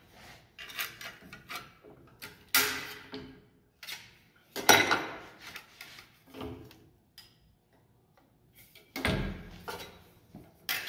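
Sheet-metal coupon clanking and knocking against the turret punch's steel die turret as it is slid in and handled: a series of separate metallic clatters, each with a short ring, the loudest about halfway through and another heavy knock near the end.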